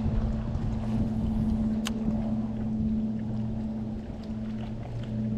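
Electric trolling motor humming steadily, cutting out for a moment near the end. A single sharp click comes about two seconds in.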